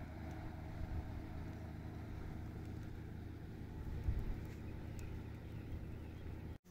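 A distant engine droning steadily on one low pitch, with a low bump about four seconds in.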